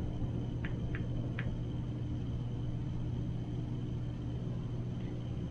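Steady low hum of room background noise, with three faint short clicks in the first second and a half.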